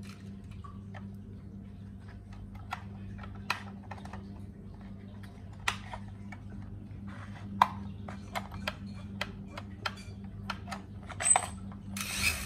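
Small plastic clicks and taps from handling a toy RC helicopter and its controller, over a steady low hum. Near the end, a brief whir as the throttle stick is pushed and the helicopter's small electric rotor motor spins up.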